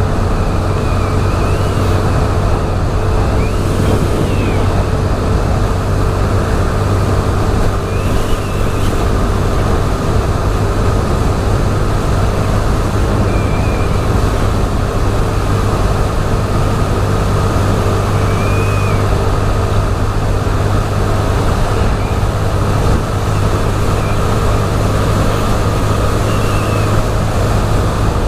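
Small step-through motorbike's engine running steadily at cruising speed, under a constant rush of wind noise on the microphone.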